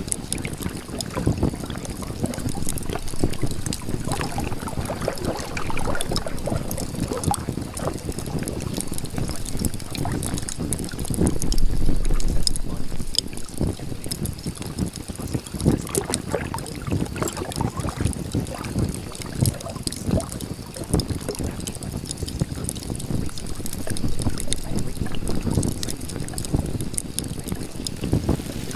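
Water splashing and sloshing under a steady wind-like rush, swelling louder and deeper for a moment about twelve seconds in.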